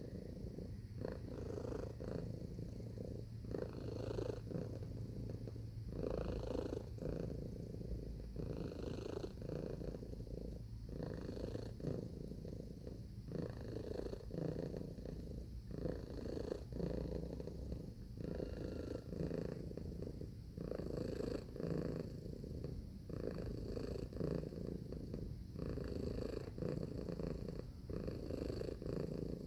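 Domestic cat purring steadily, the purr swelling and dipping in a regular rhythm of roughly a second per cycle.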